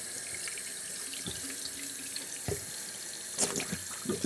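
Bathroom sink faucet running water into the basin to test whether the freshly plunged drain now flows freely. A few light knocks sound over the running water.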